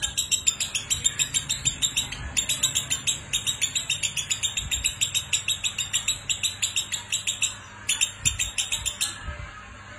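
Lovebird giving its ngekek: a long, fast chattering trill of sharp, high notes, about eight a second. It breaks off once near the end for one short burst more, then stops about a second before the end.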